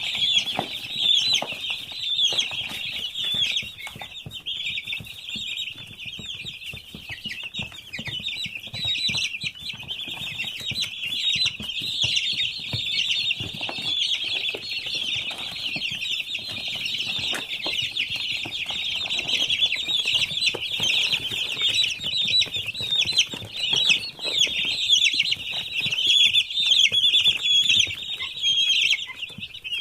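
A large flock of 17-day-old chicks cheeping constantly, many high calls overlapping into one continuous chorus, with frequent short rustles and knocks from the birds moving about.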